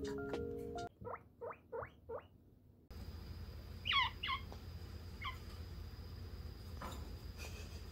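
A guinea pig wheeking: four short squeaks, each rising in pitch, in quick succession. A few higher squeaks that fall in pitch follow, over a faint steady high whine, with two faint clicks near the end.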